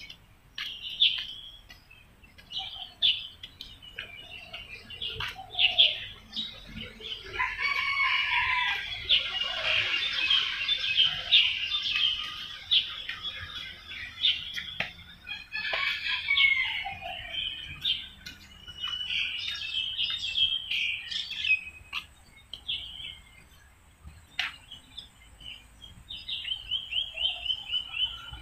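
Several birds chirping and calling, thickening into a dense chorus about a third of the way in, with a fast trill of repeated notes near the end.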